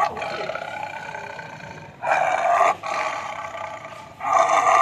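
Lion growling over the meat it is chewing, in four loud rasping bursts: a long one that fades over about two seconds, then three shorter ones about a second apart.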